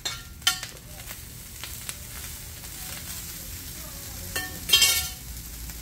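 Cooked rice sizzling with a steady light hiss as it is spooned out of a bowl onto a hot flat-top griddle, with sharp clinks in the first half-second and a louder clatter near the five-second mark.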